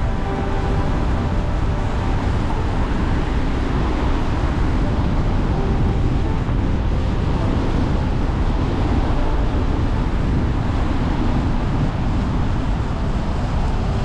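Car driving at low speed on a paved road: a steady mix of tyre and road noise with a low engine hum, unchanging throughout.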